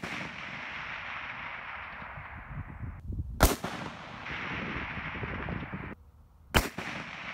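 M1903 Springfield rifle firing .30-06 rounds: the echo of a shot fired just before fills the first few seconds, then two more shots about three seconds apart, each trailing off in a long echo.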